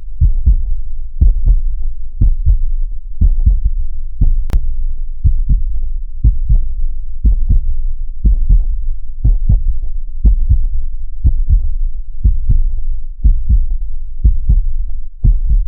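Heartbeat sound: a steady, deep lub-dub about once a second over a continuous low rumble. There is a single sharp click about four and a half seconds in.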